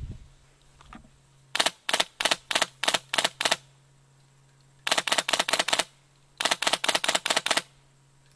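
Airsoft rifle firing BBs in three loud strings of sharp shots: about seven spaced shots, then two quicker strings of about eight shots each.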